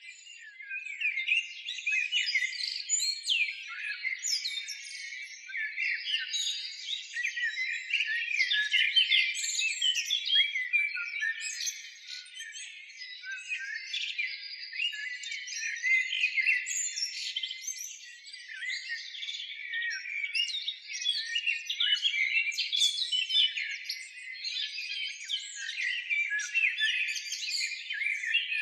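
Dense chorus of many small birds chirping and twittering without pause, the calls overlapping in waves that swell and ebb every few seconds.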